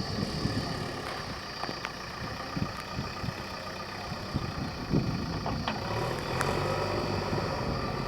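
JCB backhoe loader's diesel engine running steadily, with a few sharp clicks or knocks over it.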